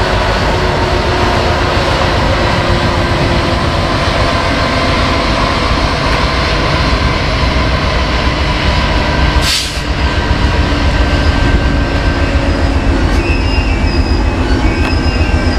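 Slow-moving freight train passing close by: diesel locomotives, among them a Santa Fe-painted EMD SD75M, running past, then freight cars rolling over the rails. A brief crackle and dip just past halfway, and thin high wheel squeals near the end.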